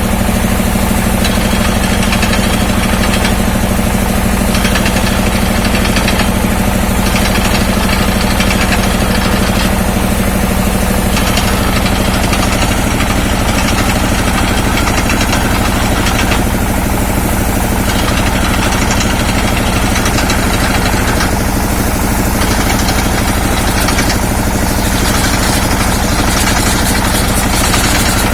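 Industrial well-drilling rig's engine running steadily and loudly, with a fast, even pulse.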